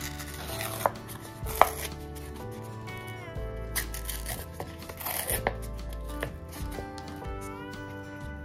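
Paper cup being torn and peeled off a frozen ice pop: several sharp rips, the loudest about a second and a half in, with crinkling paper in between, over light background music.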